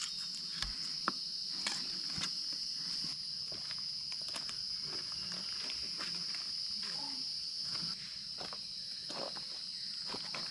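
Insects trilling in one steady, high, unbroken drone, with scattered light crackles and ticks close by.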